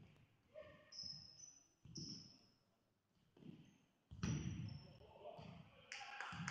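Futsal ball being kicked and passed on an indoor sports-hall floor, a string of thuds that echo in the hall, the loudest about four seconds in, mixed with short high squeaks of players' shoes.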